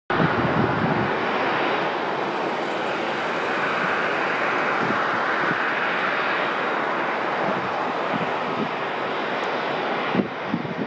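Boeing 777-200's twin turbofan engines running as the jet taxis on the runway: a steady rushing jet noise. The sound changes abruptly near the end.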